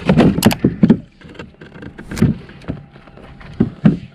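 Irregular thuds and knocks on a plastic fishing kayak as a freshly caught ray is handled aboard: a quick run of hits in the first second, one more about halfway, and two close together near the end.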